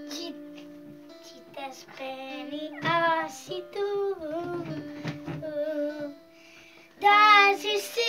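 A child singing along with music that has a plucked-string accompaniment. The singing grows loud about seven seconds in.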